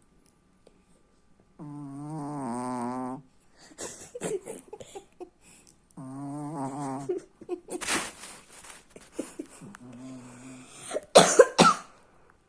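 Small dog snoring in her sleep: two long, pitched, fluttering snores, about two and six seconds in, and a shorter one near the end, with snuffling breaths between. A few loud, sharp bursts come just before the end.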